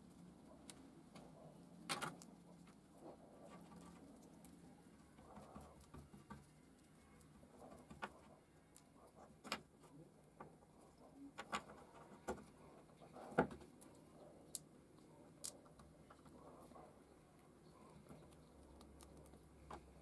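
Faint, scattered small clicks and taps from handling small parts while working with epoxy: mixing and spreading it on a knife tang and fitting wooden handle scales, over low room tone.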